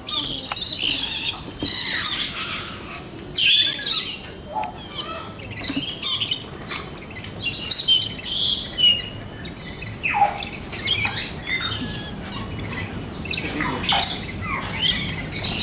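Parrots screeching and squawking in a flock, many short harsh calls overlapping one after another, some sweeping sharply down in pitch.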